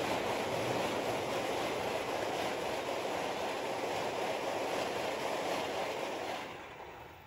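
Argo Wilis express passenger train's coaches rolling past at speed: a steady rumble and rush of wheels on the rails. It fades away near the end as the last coach goes by.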